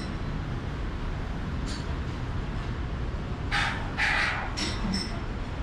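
Workshop background noise: a steady low rumble, with several short, harsh noises between about three and a half and five seconds in.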